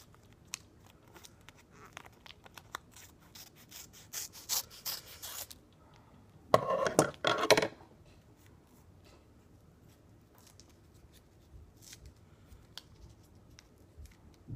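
Scissors snipping through a small printed paper package: a run of short clicking cuts, thickest about four to five seconds in. About halfway through there is a louder burst of rustling from the packaging, then only faint handling.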